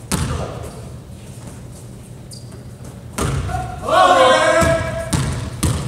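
Basketball thudding on a hardwood gym floor, with sharp impacts near the start, about three seconds in and near the end, echoing in a large gym. About four seconds in, a voice gives a loud shout.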